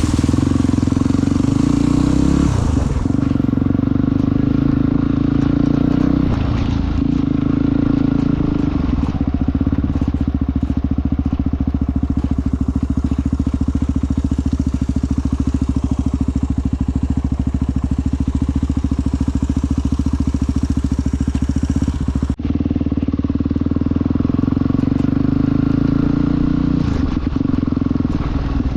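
Motorcycle engine running while riding, its note steady for long stretches and shifting pitch three times as the rider changes gear.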